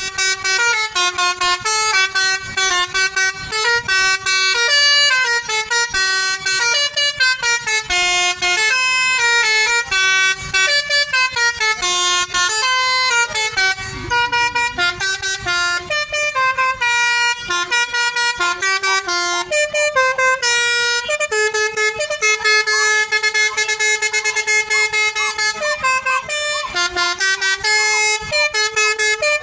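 Multi-tone 'telolet' bus horn playing a melody: a run of short notes stepping up and down in pitch, with a few longer held chords about two-thirds of the way through.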